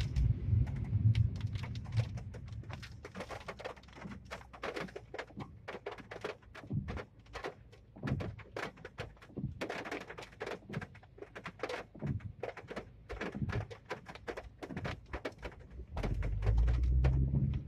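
Raindrops hitting the car's roof and windshield in irregular taps, heard from inside the cabin. A low road rumble is heard at the start and again near the end.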